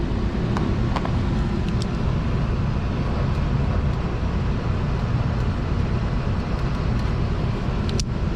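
Steady low drone of running machinery, with a few light clicks and taps in the first two seconds and another just before the end.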